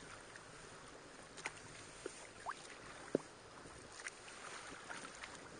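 Kayak paddling on a lake, heard faintly: small splashes and drips from the paddle blades, with short plinks that rise quickly in pitch, over a steady hiss of water and air.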